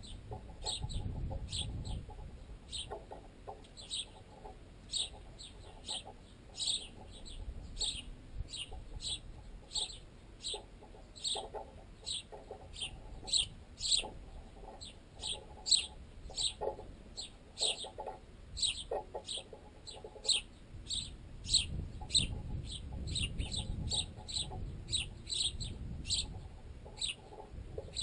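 Sparrows chirping: a steady run of short, high chirps, about two a second.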